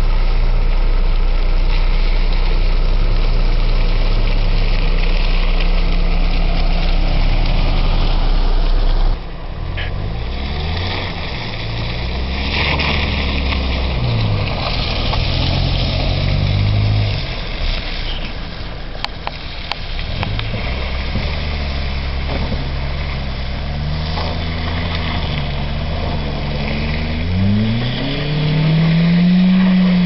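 Car engine running on a muddy dirt track: a steady drone for about the first nine seconds. After a sudden cut the engine revs up and down again and again as the car pushes through the mud, ending in one loud rev that rises and falls.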